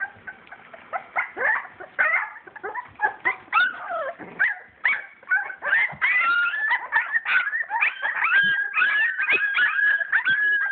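Young English springer spaniel puppies whimpering and squealing: many short high cries at first, which run together into almost continuous high whining from about six seconds in.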